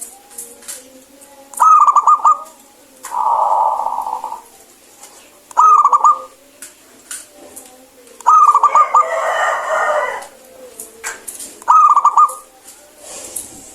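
Zebra dove (perkutut) singing: short, clear, rapidly trilled cooing phrases repeated about every four seconds, four times. Two longer, rougher bird calls fall between them.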